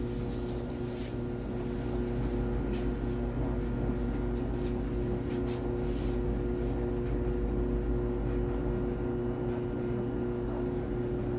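Samsung clothes dryer running a test cycle, its motor and drum turning with a steady hum and a few faint clicks. The heating element and idler pulley have just been replaced.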